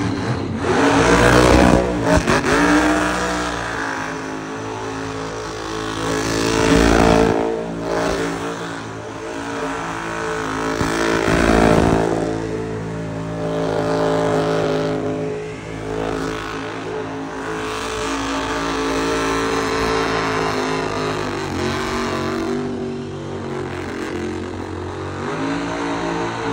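A truck engine held at high revs during a tyre-smoking burnout, with the spinning tyres hissing on the pavement. The revs surge and ease several times, then hold steadier in the second half.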